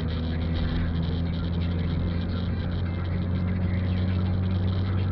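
Steady low drone of a car's engine and road noise heard from inside the cabin while driving.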